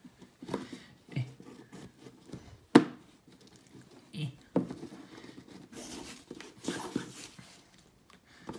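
A ribbon being untied and pulled off a cardboard gift box: scattered rustles and light taps of hands on the box. There is one sharp click a little under three seconds in.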